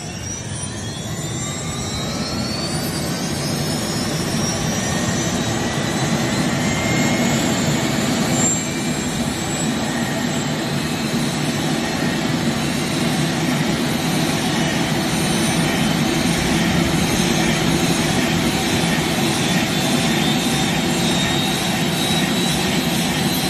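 AS350 B3 helicopter's turboshaft engine starting up: its whine rises in pitch as it spools up, then levels off after about six seconds into steady, loud running.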